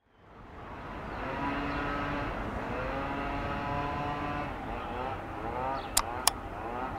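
Electric freight train approaching on a tight curve, with several steady high whining tones over a low rumble that turn into wavering glides in the last couple of seconds. Two sharp clicks come close together about a second before the end.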